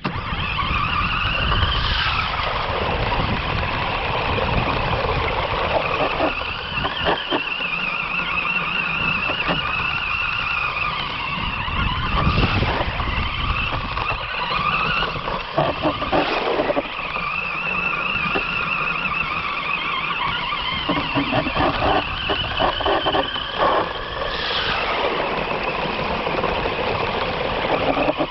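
Bwine C11 RC rock-crawler truck's electric drive motors whining, the pitch rising and falling with the throttle. Underneath is a low rumble, with a few short knocks from the rough ground.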